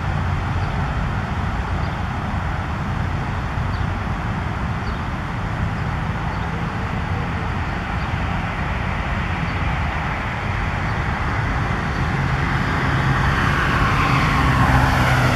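Steady road traffic noise with a low engine hum, growing louder about three-quarters of the way through as a vehicle draws near and passes, its pitch falling.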